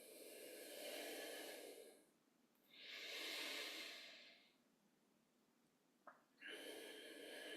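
A person breathing slowly and deeply, faint: one long breath at the start, a second about three seconds in, and a third beginning near the end.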